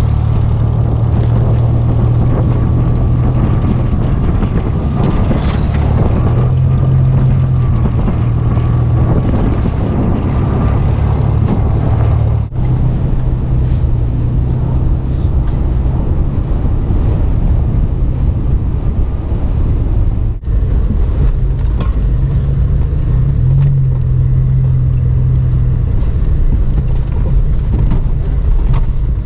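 Nissan Xterra's engine running as the SUV drives, its low hum shifting slightly in pitch with the throttle, broken by two brief dropouts.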